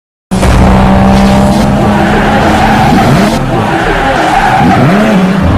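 Race-car sound effect: an engine holds a steady note for the first couple of seconds, then tyres squeal in rising and falling sweeps.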